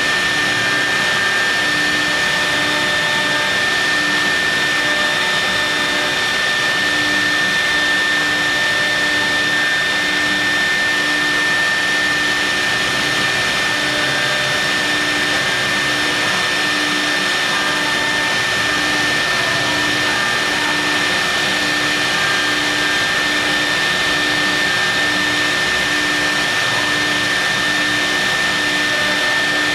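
CNC milling machine running steadily while milling marble: a constant rushing machine noise with a steady high-pitched spindle whine, and a lower tone pulsing about once a second.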